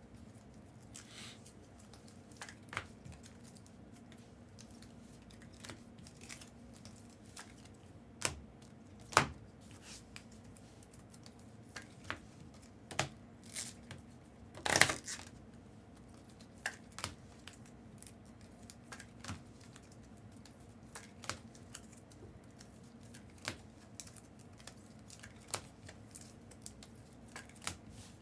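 Trading card packs being opened and the cards handled: scattered light clicks and snaps of card stock and wrappers, with a louder crinkling tear of a pack wrapper about fifteen seconds in.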